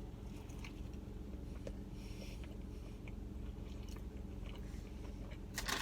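Faint chewing on a mouthful of fried chicken sandwich with crunchy breading, small crunches and mouth sounds over a steady low hum.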